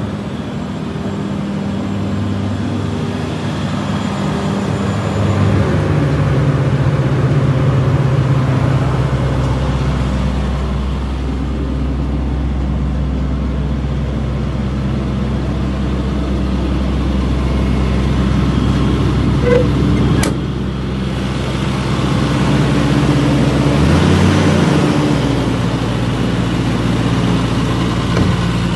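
Diesel engine of a Caterpillar 325CL excavator running steadily, its note shifting a few times as the engine speed changes. A single short knock about two-thirds of the way through.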